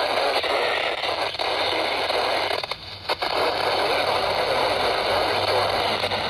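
Weather radio speaker giving out steady static hiss with crackle, with a couple of brief dropouts about three seconds in.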